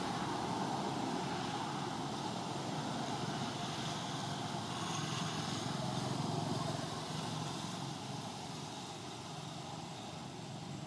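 Steady outdoor background noise, an even hum and hiss, easing a little about seven seconds in.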